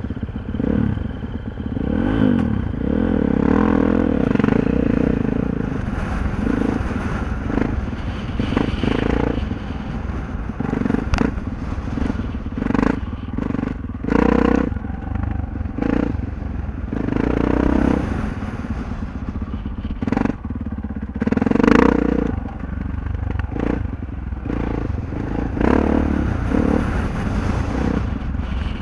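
Dirt bike engine ridden around tight dirt turns, revving up and dropping back again and again every second or two. A few sharp knocks and some clatter ride over the engine.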